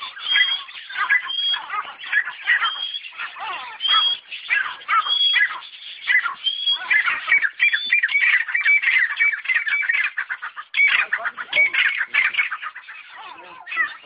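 Francolins (teetar) calling: a dense run of overlapping chattering calls, with a short high note repeating about once a second through the first half.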